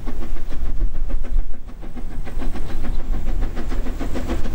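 Narrow-gauge steam locomotive of a 70 cm gauge forest railway working along the line: a quick, even beat of exhaust chuffs over a low rumble.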